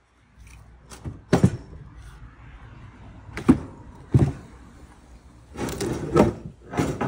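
Wooden knocks and clunks as round roller logs and a steel pry bar are shifted against a flagstone on a plywood trailer bed. Four separate sharp hits come first, then a longer clattering, scraping stretch about six seconds in.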